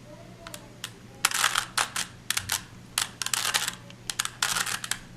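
3x3 Rubik's cube being turned by hand: its plastic layers click and rattle in short, irregular runs of turns, with brief pauses between.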